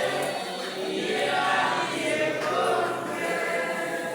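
A crowd of voices singing a song together.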